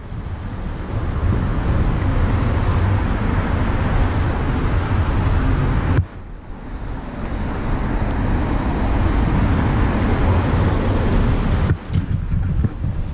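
Wind buffeting the microphone of a pole-mounted camera carried along by a moving rider: a steady, rough rush with a heavy low rumble. It drops away abruptly for a moment about six seconds in and again near the end.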